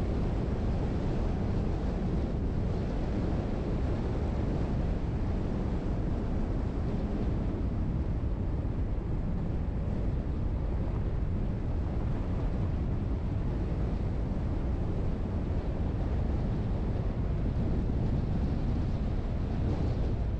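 Steady low rumble of a vehicle on the move: road, tyre and engine noise with wind.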